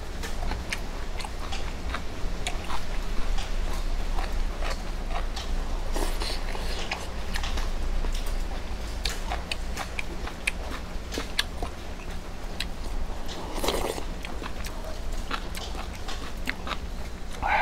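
Metal utensil clicking and scraping in an aluminium mess tin of ramen, with eating sounds: a brief noisy slurp about two-thirds of the way through, and chewing.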